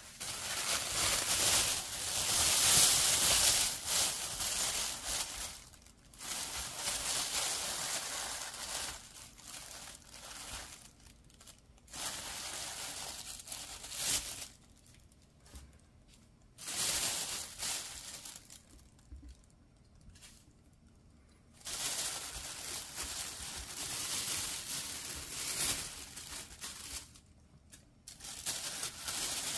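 Thin black plastic bag crinkling and rustling as it is untied and hands rummage in it to take mushrooms out. The sound comes in several bursts of a few seconds, with short quiet gaps between them.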